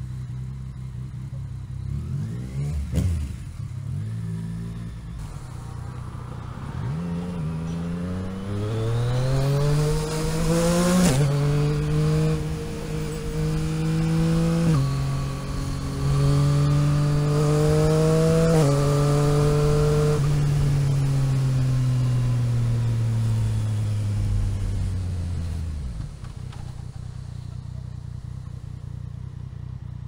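Motorcycle engine accelerating hard through the gears: the note climbs, then drops sharply at each of three upshifts, about 11, 15 and 19 seconds in. After the last shift the note holds and slowly sinks, then falls away near the end, leaving steady wind and road noise.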